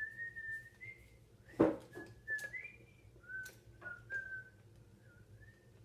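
A person whistling a wandering tune of short gliding notes, with a sharp knock about one and a half seconds in and a few lighter clicks.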